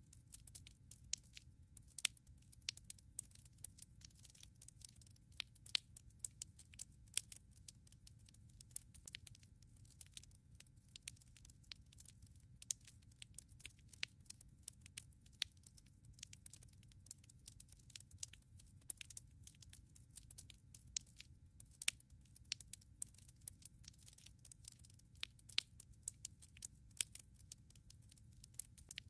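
Wood fire crackling in a fireplace: many irregular sharp pops and snaps of burning logs over a faint low rumble.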